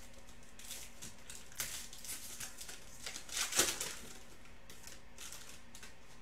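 Foil wrapper of a Panini Prizm football card pack crinkling as it is torn open and peeled off the cards, in irregular rustles, the loudest about three and a half seconds in.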